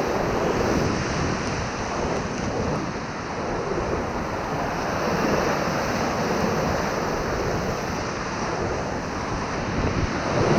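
Whitewater rushing steadily around a raft in river rapids, with wind noise on the microphone.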